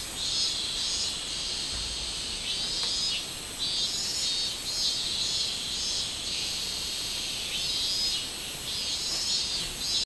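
Minmin cicada (Hyalessa maculaticollis) singing its repeated pulsing call in bouts that break off briefly now and then, over a steady higher buzz of insect song.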